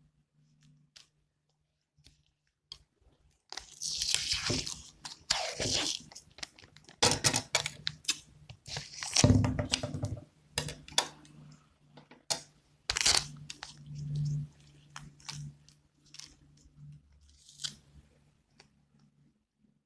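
Plastic drinking straws being handled and laid on a hard tabletop: after a few quiet seconds, an irregular run of crinkles, rustles and sharp clicks.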